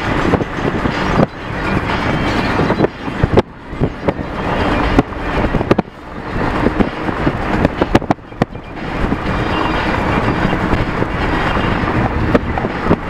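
Car driving: steady road and wind noise, with occasional sharp knocks.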